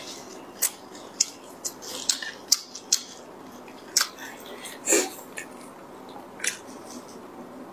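Close-up crinkling and crackling of disposable plastic gloves as hands tear cooked pork apart and handle garlic cloves: short, sharp, irregular clicks over a low hiss.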